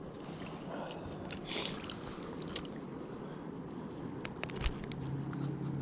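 River water flowing steadily, with scattered small clicks and light splashes over it.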